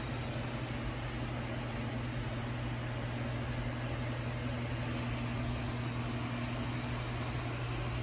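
A steady low hum under a constant hiss, with a faint higher tone joining for a couple of seconds in the middle.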